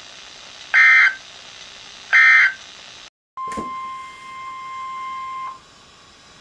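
NOAA Weather Radio alert signalling: two short, loud bursts of SAME digital data tones about a second and a half apart, then after a brief dropout and a click, the steady 1050 Hz warning alarm tone sounds for about two seconds and stops.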